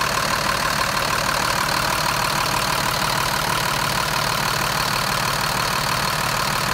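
Mercedes-Benz diesel engine of a 2007 Freightliner C2 school bus idling steadily, heard close up at the open engine bay.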